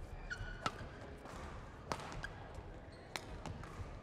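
Badminton rally: rackets hitting the shuttlecock three times, about a second and a quarter apart, with shoes squeaking briefly on the court floor between strokes.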